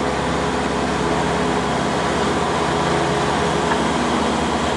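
Cessna light airplane's piston engine and propeller droning steadily, heard from inside the cabin.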